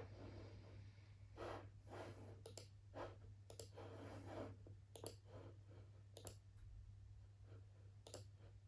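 Computer mouse clicking now and then, each click a quick double tick, among softer rubbing sounds of desk work, over a steady low hum.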